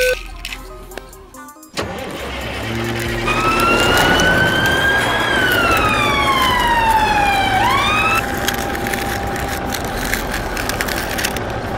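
Vehicle sound effect: a steady rushing noise starts suddenly about two seconds in. Under it a whining tone climbs slowly, falls away over a couple of seconds, then jumps back up about eight seconds in.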